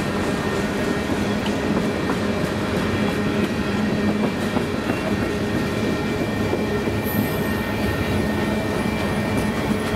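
Freight train cars (tank cars, boxcar, autoracks) rolling past close by: a steady rumble and clatter of steel wheels on the rails, with faint thin high tones held over it.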